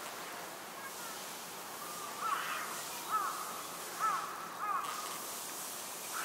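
A bird calling four times, short calls about a second apart, each rising then falling in pitch, over a steady background hiss.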